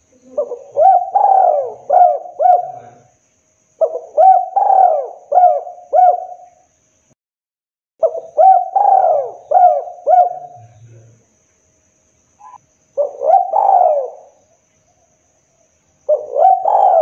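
Spotted dove cooing: five phrases of four or five short rising-and-falling coos each, spaced a few seconds apart. This is the call used as a lure for trapping wild spotted doves.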